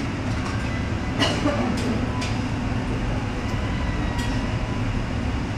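Steady low rumble of restaurant background noise, with a few light clicks and clinks about a second in and again shortly after.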